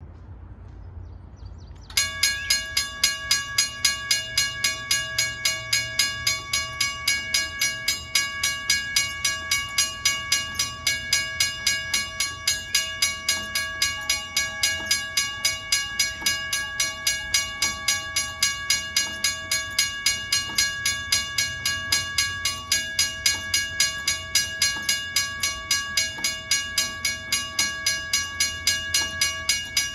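Wigwag railroad crossing signal's bell ringing in a fast, even series of strokes, starting about two seconds in.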